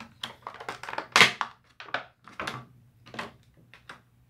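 Thin clear plastic bag crinkling and rustling in irregular bursts as it is handled and pulled off a vinyl figure, the loudest crackle about a second in.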